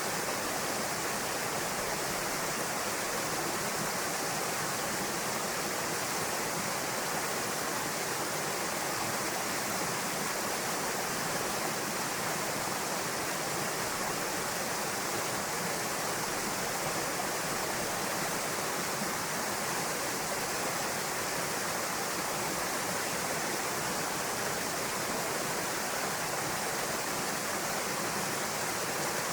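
Small waterfall pouring into a pool, a steady rushing splash of water.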